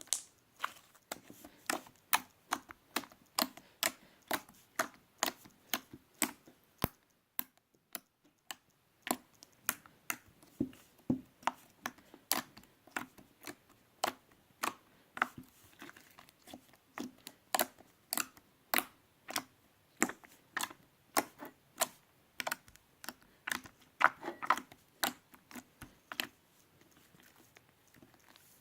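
Creamy, fluffy slime being worked, making a run of sharp wet pops about two or three a second. There is a short pause about seven seconds in, and the pops stop shortly before the end.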